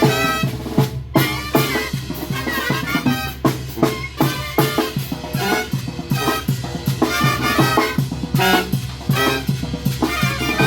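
Mexican brass band (banda de viento) playing live: brass melody over steady snare and bass drum beats.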